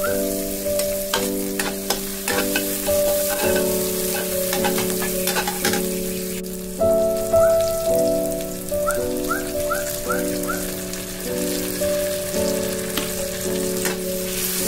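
Sliced onions and chillies sizzling in hot oil in a wok, with a metal spatula scraping and stirring. A light background melody runs underneath, its notes changing about twice a second, with small rising chirps.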